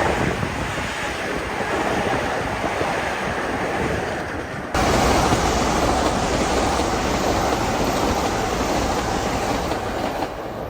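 A passenger train passing at speed, wheels rumbling and clattering over the rails. About halfway through the sound changes abruptly and gets louder.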